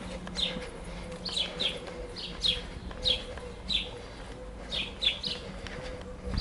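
Small birds chirping: short, sharply falling chirps, often in quick pairs, repeating every half second or so, over a faint steady hum.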